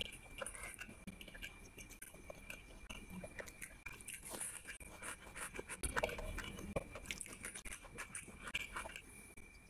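Close-miked eating: crisp bites and crunchy chewing of a green chilli and raw onion with rice, with wet mouth clicks and smacks. A faint steady high-pitched whine sits underneath.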